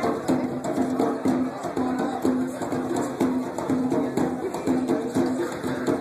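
African percussion music: drums and other percussion playing a steady, driving rhythm, with a repeating pitched line over it.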